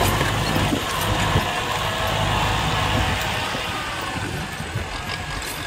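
Farm tractor's diesel engine running steadily under load as it pulls a three-disc plough through dry soil, a low continuous engine drone that eases a little in the second half.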